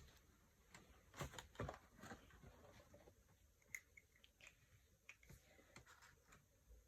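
Faint scattered clicks and taps of small plastic pieces being handled as a plastic fashion doll's boots are pushed onto its feet, with a cluster of them about a second in.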